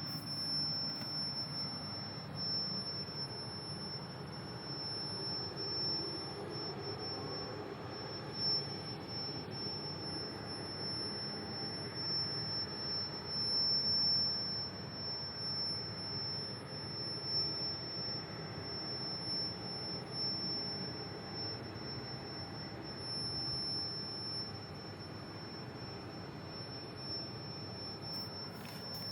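A steady, high-pitched whistle holding one unchanging pitch, over a low background hum.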